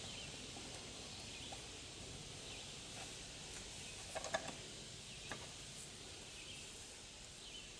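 Faint outdoor ambience with distant birds chirping, broken by a few light knocks about four seconds in and one more just after five.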